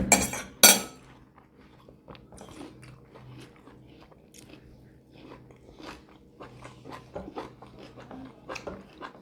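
Close-miked eating: two loud bites within the first second, then steady chewing with many small crunchy clicks.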